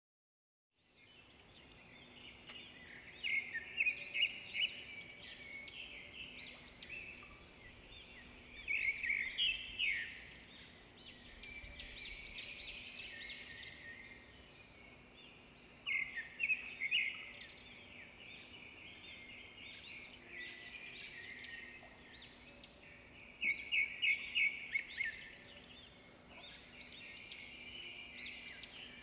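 Several birds chirping and singing, with bursts of rapid repeated notes every few seconds, over a faint steady hum.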